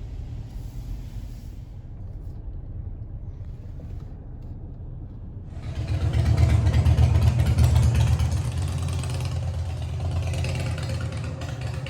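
A vehicle's low, steady rumble, which swells about halfway through into a loud rush of engine and road noise, as when a car accelerates or a vehicle passes close by, then slowly eases off.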